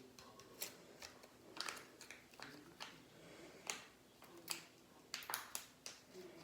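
Hands handling a slime kit's slime and plastic packet: faint, irregular sharp clicks and crackles.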